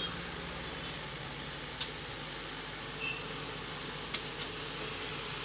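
Precision screwdriver driving the tiny screws of a phone's midframe, heard as a few faint light clicks over a steady room hum.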